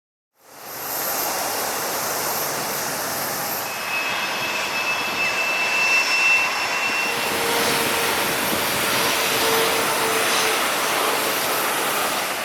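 Jet airliner engines running: a steady rushing noise with whining tones over it, a high whine from about four seconds in, giving way to a lower steady tone around seven seconds.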